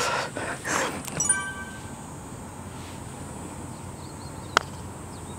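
A single sharp click of a putter striking a golf ball on the green, about four and a half seconds in, over a faint steady outdoor background.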